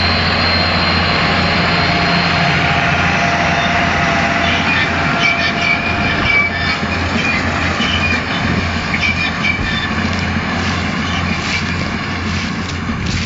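Claas Ares 816 tractor running steadily under load as it pulls a Claas Variant 180 RotoCut round baler past, with a low engine hum and a high whine. Partway through, squeaks and clicking rattles from the baler's mechanism come in as it passes close, and the noise eases off as the outfit moves away.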